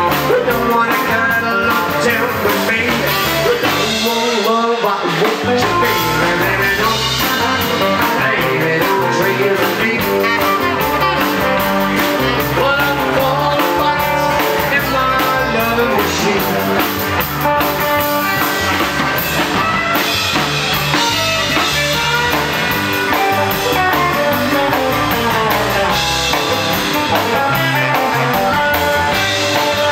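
Rockabilly band playing live: guitars, upright bass and drums with a singer, and a saxophone.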